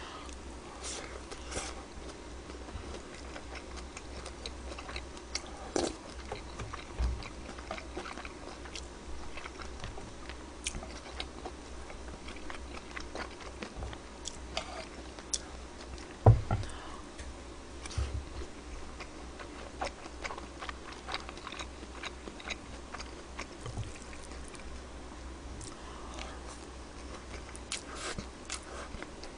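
Soft chewing and mouth sounds of a person eating close to the microphone, with scattered light clicks of a spoon on bowls. A single louder knock comes about sixteen seconds in.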